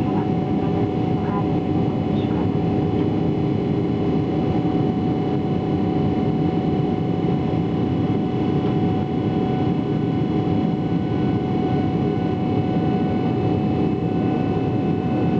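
Steady roar of a Boeing 777-300ER's GE90-115B turbofan engines and airflow heard inside the cabin by the wing, with several steady tones running through the rush, as the airliner climbs out after take-off.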